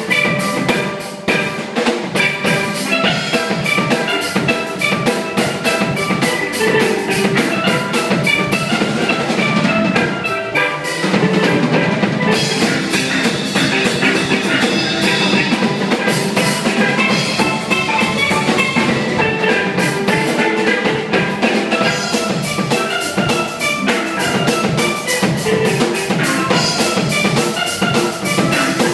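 Steel band playing 1950s rock and roll: several steelpans ringing out the melody and chords over a drum kit keeping a steady beat.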